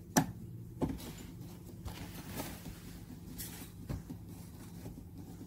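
Screwdriver driving in the mounting screws of a car door speaker: scattered clicks and scrapes of the tool on the screw and the metal door panel, with a sharp knock just after the start and others about a second in and near four seconds.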